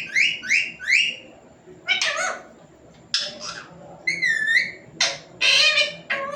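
Talking pet parrot calling: four quick rising whistles in the first second, then a string of short word-like calls, one wavering whistle near the middle, and louder harsh calls toward the end.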